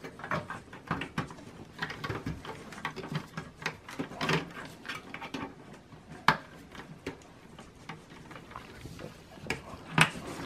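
Irregular small clicks, taps and rustling of power-supply cables and plastic connectors being handled by gloved hands inside a desktop computer's metal case, with a few sharper clicks about four, six and ten seconds in.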